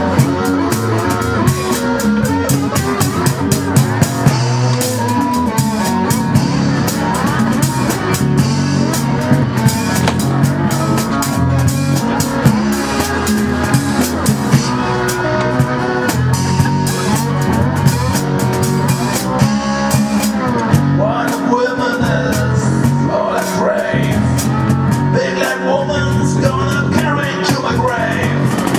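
Live acoustic blues band playing an instrumental passage: two acoustic guitars over a steady beat from a cajon and cymbals.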